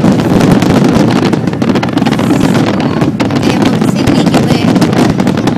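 Large fireworks barrage: many shells bursting and crackling at once, blending into a continuous loud rumble.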